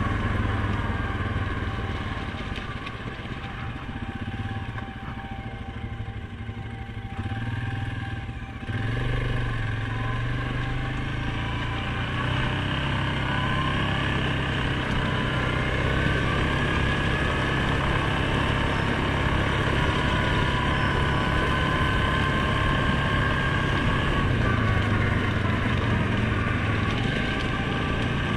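Suzuki KingQuad 750 ATV's single-cylinder engine running under way. It eases off for a few seconds, then picks up sharply about nine seconds in, its pitch rising as it accelerates before holding steady.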